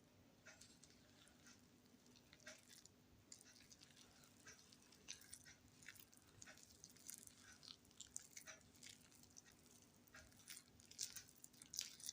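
Faint, irregular scraping and soft clicking of a spatula mixing thick chocolate cake batter in a bowl, the strokes growing busier and louder in the second half.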